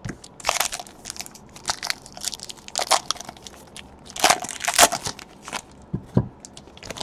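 Foil wrapper of a Panini Spectra football card pack being torn open and crumpled in the hands: an irregular run of crinkling crackles, loudest about four to five seconds in. Near the end come two soft knocks as the stack of cards is set down on the playmat.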